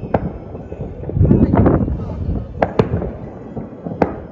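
Fireworks going off: four sharp bangs, one just after the start, two in quick succession past the middle and one near the end, over a low rolling rumble that swells about a second in.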